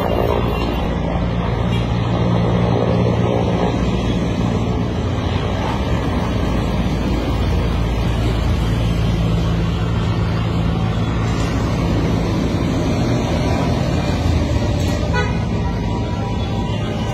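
Military transport helicopter flying low overhead, a steady, loud drone of its rotor and turbine engines.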